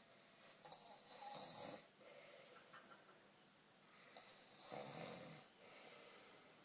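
A man snoring in deep sleep: two faint, long snores, one about a second in and one about four and a half seconds in, each lasting about a second.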